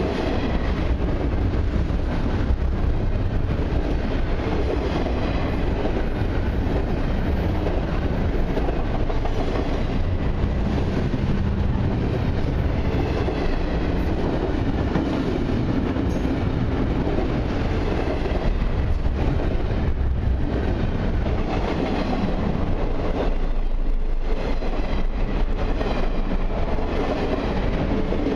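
Double-stack intermodal freight train's container well cars rolling past: a steady, loud rumble and clatter of steel wheels on the rails.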